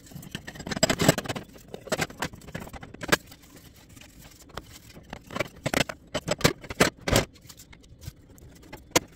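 Metal gas-stove burner heads and caps knocking and scraping against the stove's steel top as they are picked up and set down. An irregular series of clatters, busiest about a second in and again between five and seven seconds, with a last sharp knock near the end.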